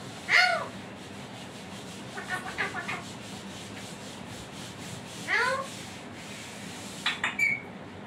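Green parakeet calling: a loud call that falls in pitch near the start, a quick run of short chattering notes around two to three seconds in, another call that sweeps up about five seconds in, and a few short clicking notes near the end, over a steady background hiss.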